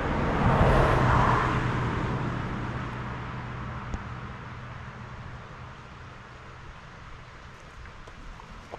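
A car driving past on the road, loudest about a second in, then fading away over the next several seconds.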